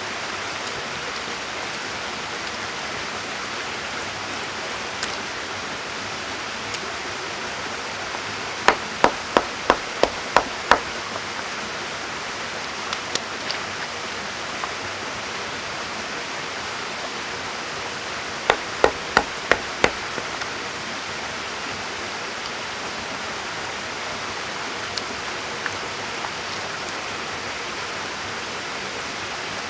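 Steady rush of running stream water. Over it, two quick runs of sharp clicks, six and then five at about three a second, about nine and nineteen seconds in.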